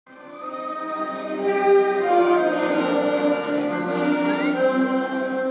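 Music: layered sustained chords of many held notes, choir- or orchestra-like, fading in over the first second and moving from chord to chord.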